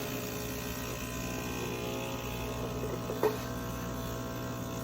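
Gaggia Anima Prestige super-automatic espresso machine running with a steady hum partway through a cappuccino cycle, which the user takes to be the built-in grinder grinding the coffee. A short click comes about three seconds in.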